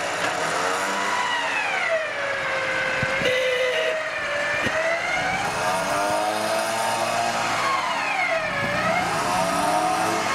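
Mitsubishi Pajero Sport engine revving hard under load as the SUV works through deep snow, its pitch rising and falling in slow waves, with a couple of short knocks in the middle.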